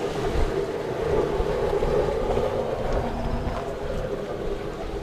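Wind buffeting the microphone outdoors, gusting in irregular low thumps over a steady low rumble.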